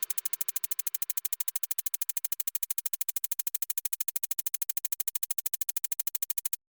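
Rapid, evenly spaced electronic pulsing, more than ten sharp pulses a second, held at a steady rate. It cuts off abruptly near the end.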